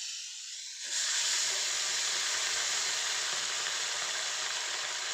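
Fish pieces frying in hot oil in a pan, sizzling steadily as they are fried hard toward a deep brown, nearly black. The sizzle swells louder about a second in.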